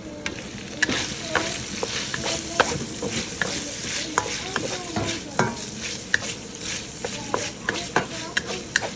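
Chopped bacon sizzling in a steel wok, stirred with a metal utensil that clicks and scrapes against the pan many times. The sizzle gets louder about a second in.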